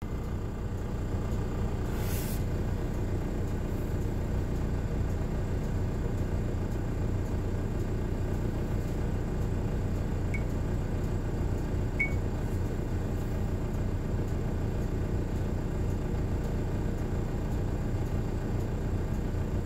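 Distant DB class 218 diesel locomotive, fitted with a snowplough, running as it slowly approaches; a steady low rumble.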